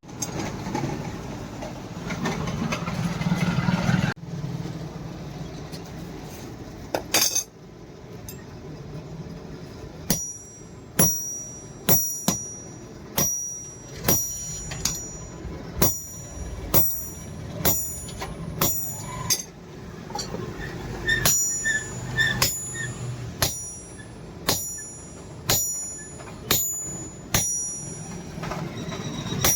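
Blacksmith's hammer striking steel on an anvil in a steady rhythm of about one and a half blows a second, each blow ringing. Before the hammering, a steady rushing noise stops about four seconds in.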